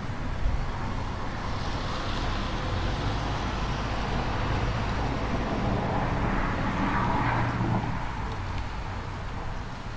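Steady hiss of compressed air fed through a cylinder leak-down tester into a cylinder of a Toyota 2ZZ-GE engine and leaking out past it, over a low steady hum. The hiss swells about two seconds in and again around seven seconds. The leakage gauge reads about 20 to 25% on this engine.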